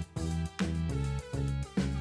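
Background instrumental music with a steady beat and repeated struck notes.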